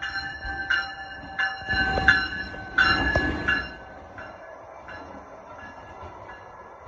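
Brightline passenger train passing close by, its Siemens Charger diesel locomotive rumbling loudest in the first half and then easing to the steadier run of the coaches. A warning bell pings about once every 0.7 seconds.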